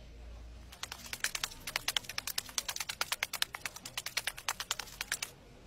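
A quick run of light, sharp clicks, several a second in an uneven patter, starting about a second in and stopping shortly before the end.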